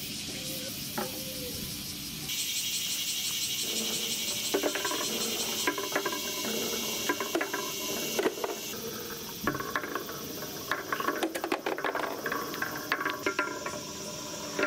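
Small balls rolling and clattering along weathered wooden bench slats: irregular clicks and knocks that grow busier toward the end. A steady high hiss runs underneath from about two seconds in until about nine seconds in.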